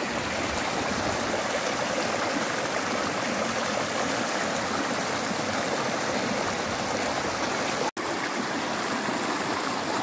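Shallow stream rushing and splashing steadily over mossy rocks in a small cascade. The sound cuts out for an instant about eight seconds in, then resumes.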